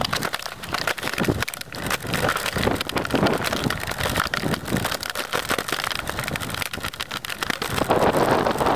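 Wind buffeting the microphone as a bicycle rolls along a dirt path, over a constant crackle of the tyres on grit. The low rushing grows louder near the end.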